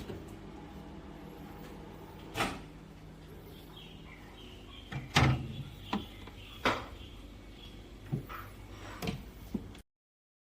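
A bar fridge door being opened, closed and handled: a series of separate knocks and thumps, the loudest about halfway through, over a low steady hum. The sound cuts off abruptly just before the end.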